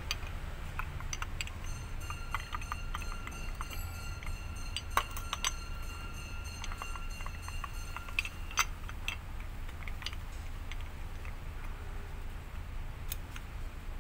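Light metallic clicks and clinks as a steel piston pin is pushed through a new air-compressor piston and its connecting rod, with a thin metallic ringing held for several seconds in the middle.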